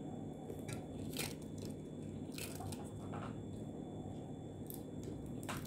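Eating sounds: a handful of short, sharp crunches and clicks as crispy fried pig snout is bitten and chewed, over a steady low hum.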